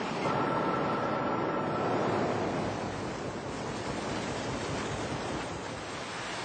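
Water rushing and churning, a steady noisy wash. A faint high whine runs through the first two seconds.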